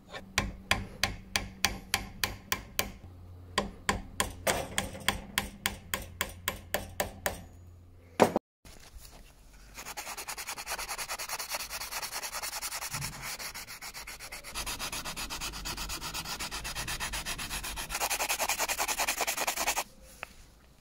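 Quick hand strokes of an abrasive on a wooden screwdriver handle, about three to four a second with a short pause, then after a brief break a continuous sandpaper rubbing on the wood that grows louder near the end and stops suddenly.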